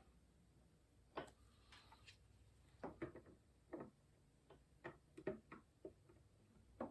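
Faint, irregularly spaced clicks and taps of plastic Lego pieces being handled and moved.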